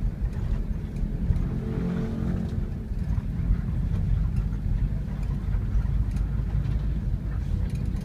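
Diesel bus engine running and road noise, heard from inside the cabin as the bus drives along: a steady low rumble.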